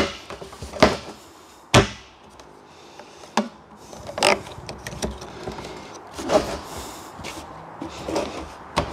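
Plastic water butt and plastic downpipe being handled: a series of separate knocks and bumps as the barrel and its lid are shifted and the downpipe shoe is pushed into the lid. The sharpest knock comes a little under two seconds in.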